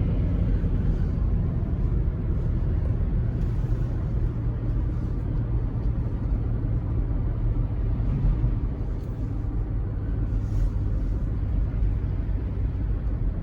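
A car driving at low speed, heard from inside the cabin: a steady low rumble of engine and tyres on the road.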